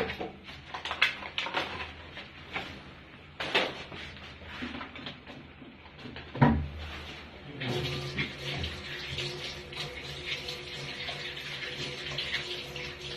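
Kitchen clatter with a few clicks and one sharp knock, then water running steadily into a container for the last five seconds or so, filling it to thaw a bag of frozen crayfish.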